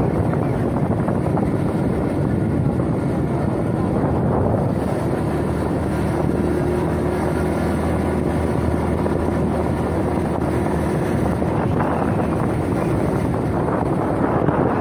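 Wind buffeting the microphone of a moving motorcycle, a steady loud rumble with the motorcycle engine's hum underneath.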